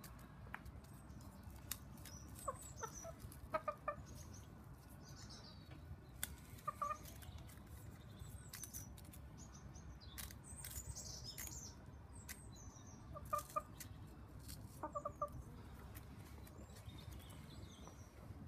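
Bantam hens clucking: short low clucks in small groups of two or three, spaced a few seconds apart. Faint high chirps and light clicks fall in between.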